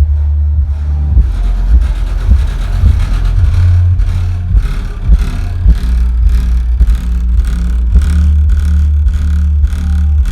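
Bass-heavy electronic music played loud through a Hard Power S1000 1000-watt subwoofer, deep held bass notes dominating under a steady beat.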